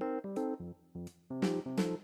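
Background music: a light keyboard tune of short plucky notes, getting fuller about halfway through.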